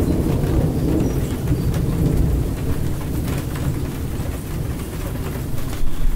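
Heavy rain falling steadily, with a low rumble of thunder that eases off after the first couple of seconds.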